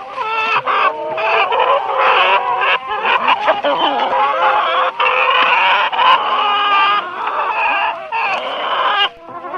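Chickens clucking and squawking without pause, several calls overlapping, with a short lull near the end.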